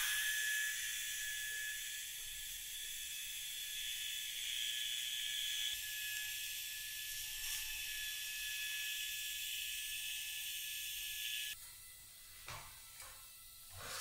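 TIG welding arc on steel: a steady high hiss with a thin steady tone, cutting off suddenly about three-quarters of the way through as the arc is broken. A couple of faint knocks follow.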